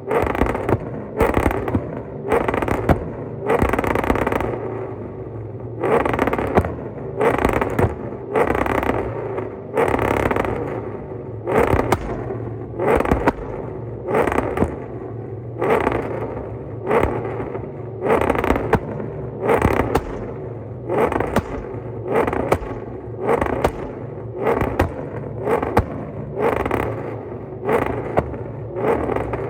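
Cammed Ford Crown Victoria's 4.6-litre V8 running, its sound swelling and falling steadily about once a second.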